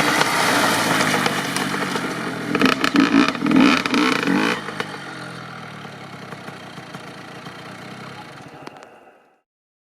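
Honda CR85 85cc single-cylinder two-stroke dirt bike engine running, blipped hard in several quick revs about two and a half to four and a half seconds in. It then fades away steadily and cuts off suddenly near the end.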